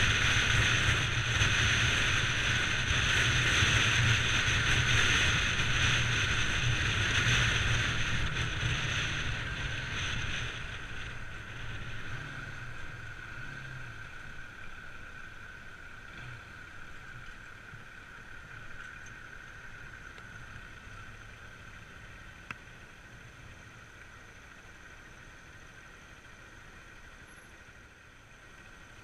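Bajaj Pulsar 200 NS single-cylinder motorcycle ridden at speed: wind rushing over the microphone with the engine's low drone beneath. About ten seconds in, both begin to fade and grow steadily quieter as the bike slows.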